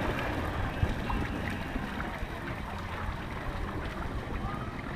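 Moving water rushing and splashing, with faint voices in the background.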